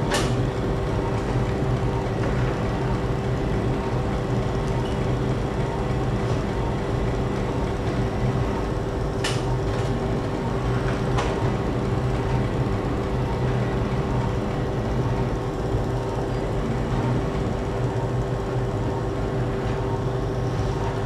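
Steady hum and hiss of operating-room arthroscopy equipment, with a sharp click at the start and two more around the middle.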